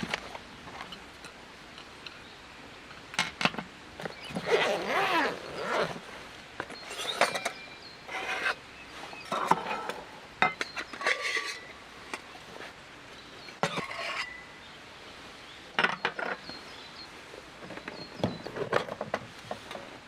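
Intermittent handling noises: short clinks, knocks and rustles of small objects being picked up and set down, spaced a second or two apart.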